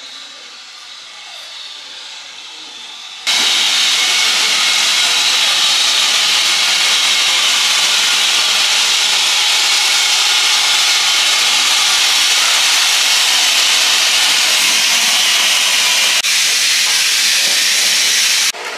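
Steam locomotive letting off steam: a loud, steady hiss that starts suddenly about three seconds in and cuts off suddenly just before the end.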